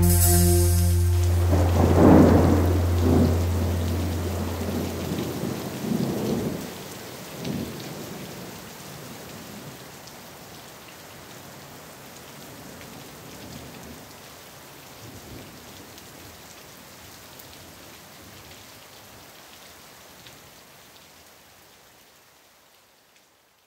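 Thunder and rain sound at the close of the soundtrack: a deep held tone stops about five seconds in, with rolls of thunder over a steady rain hiss that fade slowly away to silence.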